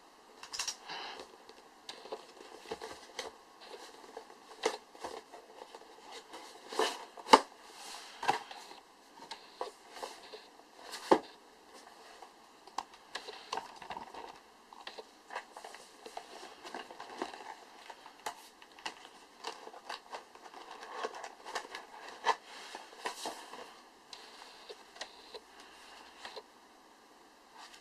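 Phone packaging being handled and unpacked: continual rustling and crinkling with frequent sharp clicks and taps, a few of them loud.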